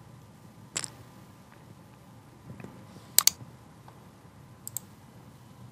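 A few sharp clicks from a computer mouse and keyboard: a single click about a second in, then a close pair of clicks a little past the middle and another fainter pair near the end, over a low room hiss.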